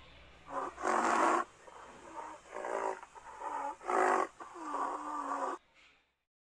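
A wild animal sound effect: about five loud calls in quick succession, the last one the longest, with a pitch that dips and rises. The sound cuts off abruptly about six seconds in.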